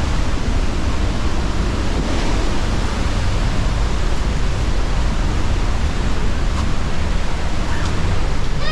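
Steady, loud rushing of the Pailón del Diablo waterfall on the Río Verde, a dense, even roar heaviest in the low end.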